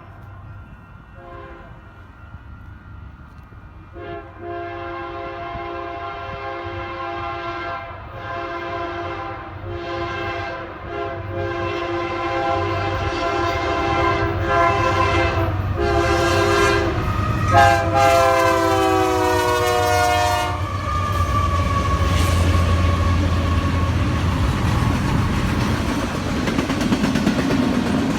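Train horn sounding a series of long blasts as the train approaches, growing louder. The pitch drops as it passes at about twenty seconds in, followed by the rumble and clickety-clack of the passing train.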